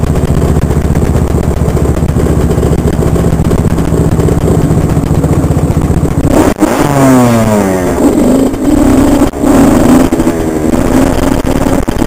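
Honda CR85 two-stroke dirt bike engine idling with a steady low note for about six seconds, then revved and ridden away, its pitch climbing and dropping repeatedly with the throttle.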